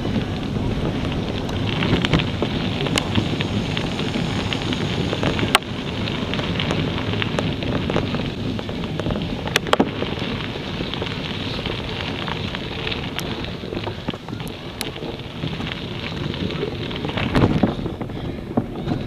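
Wind buffeting an action camera's microphone, a steady rumbling rush, with a few sharp clicks and knocks from the camera being handled or jostled.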